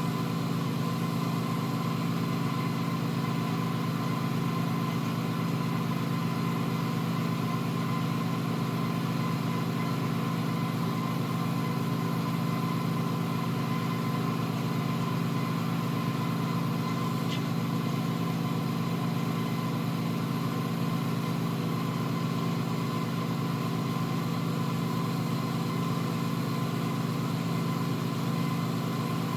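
A steady machine hum at a constant pitch, unchanged throughout, with one faint tick about 17 seconds in.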